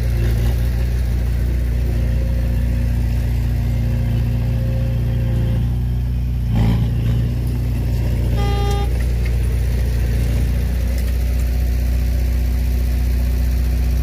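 Heavy-equipment diesel engine running steadily, with a brief louder surge about six and a half seconds in and a short beep about two seconds after that. The engine's low note eases a little near the end.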